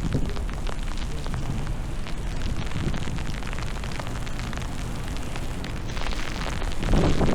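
Wind from a snowstorm buffeting the microphone: a steady low rumbling noise that swells into a louder gust near the end.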